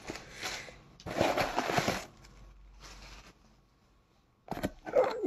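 Plastic packaging being handled, rustling and crinkling in short bursts, the loudest about a second in, with a few sharp clicks near the end.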